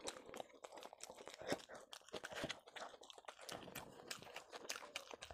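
Close-up eating sounds: brown bread torn by hand and dipped in chicken kosha, then chewed. The sounds are faint, irregular small crunches and mouth clicks.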